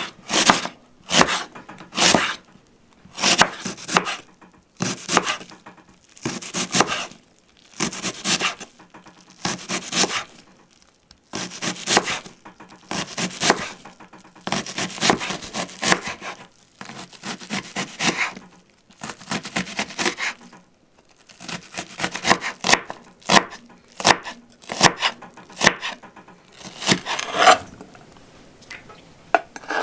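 Kitchen knife cutting a white onion on a wooden cutting board: slicing, then dicing. The separate cuts come about once a second at first, with quicker runs of short cuts after the middle.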